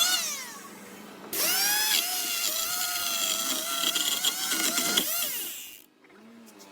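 A small power tool's electric motor spins up with a rising whine about a second in, runs at a steady high pitch, then winds down and stops about five seconds in.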